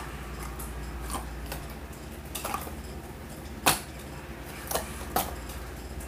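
Scattered light clicks and taps of handling, about six in all, the loudest about three and a half seconds in, over a steady low hum.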